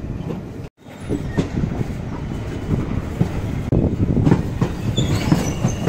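Passenger train running along the tracks, heard from on board: a steady rumble with the irregular clatter of the wheels over rail joints. The sound breaks off for an instant less than a second in.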